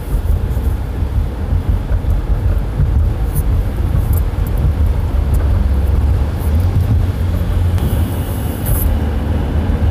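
Steady low road rumble and engine noise heard inside the cabin of a moving car.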